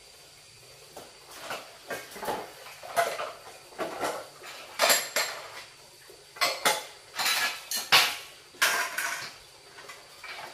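Dishes and utensils clinking and clattering in a string of irregular knocks, starting about a second in.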